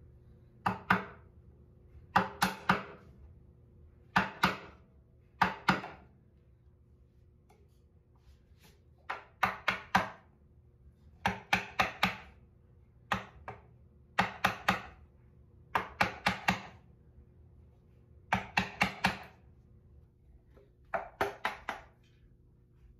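Wooden mallet striking a wooden-handled chisel, chopping a stopped rabbet into a pine board: sharp knocks in quick clusters of two to four, a cluster every second or two, with a pause of about three seconds some six seconds in.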